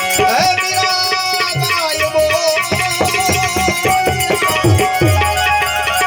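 Instrumental interlude of a Gujarati devotional folk song: tabla keeps a steady rhythm, its bass drum strokes sliding down in pitch, under held notes and a wavering melody line.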